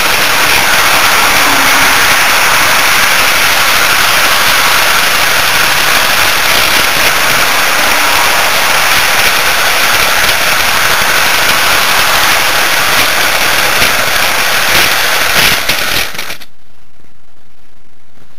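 Loud, steady crackling rattle from a camera riding on a running HO-scale model train, the car rolling over the track. It cuts off suddenly about 16 s in, leaving a much quieter steady hiss with a faint low hum.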